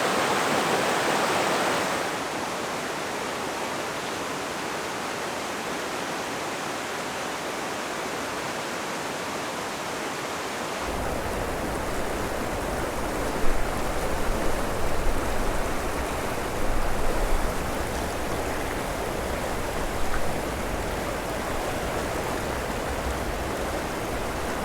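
Rushing river water, a steady noise with no pitch. It shifts about two seconds in, and from about eleven seconds in a deep low rumble joins it, with a few short louder bumps.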